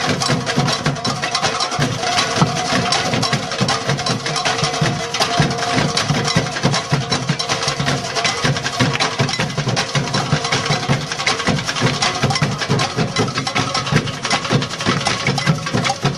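A live percussion group playing a fast, dense rhythm of many drum strokes, with a steady tone underneath.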